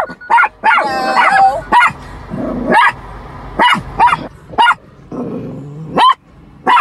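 Chihuahua barking again and again in short, sharp yips at a stranger outside the car, with a drawn-out whining call about a second in.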